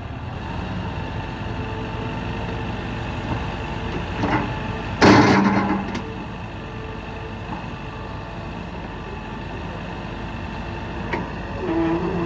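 CAT 316EL hydraulic excavator running steadily, with a loud burst of sound lasting about a second roughly five seconds in and a few short knocks before and after it.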